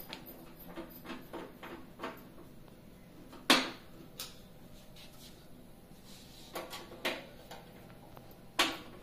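Scattered clicks and light knocks of hard objects being handled, with two sharper knocks, one about three and a half seconds in and one near the end.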